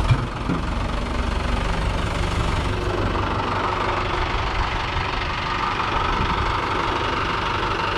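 Mahindra 575 DI tractor's four-cylinder diesel engine running steadily while pulling a loaded trolley through a slow turn. A short thump sounds right at the start.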